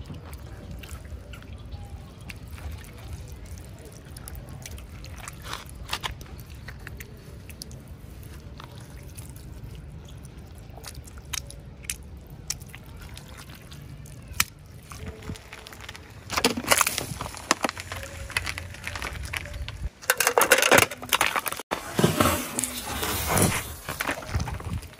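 Faint squelches and clicks of soft jelly being squeezed by hand over a low steady rumble. From about two-thirds in, plastic bottles and snack packets crackle and pop loudly for several seconds as a car tyre rolls over and crushes them, squirting out liquid.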